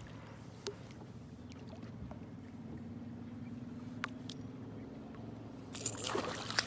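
A spinning reel being wound in a faint steady whir with a few light clicks as a hooked pike is brought to the boat, then a short rough splash near the end as the pike thrashes at the surface beside the landing net.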